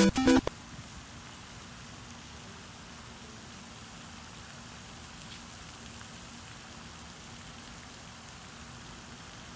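A plucked-guitar music cue cuts off about half a second in, leaving a low, steady, even hiss of outdoor background noise.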